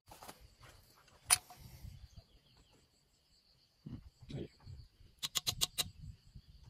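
Light metallic clicks from a small metal tractor part being handled in the fingers: one sharp click, then a quick run of about five clicks near the end. A faint steady high insect trill runs underneath.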